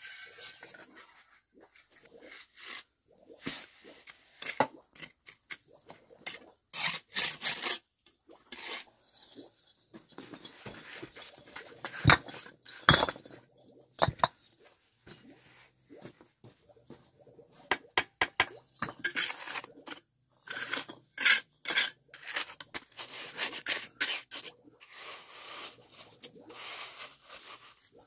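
Bricklaying: a steel trowel scraping and scooping cement mortar, with irregular sharp knocks and clinks as fired clay bricks are set and tapped into place. The loudest knocks come near the middle, and longer scraping passes come about a quarter of the way in and near the end.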